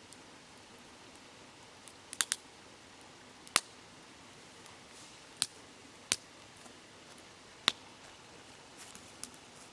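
Wood campfire crackling: sharp dry pops, a quick cluster of three about two seconds in and then single pops every second or two, over a faint steady rush of a babbling river.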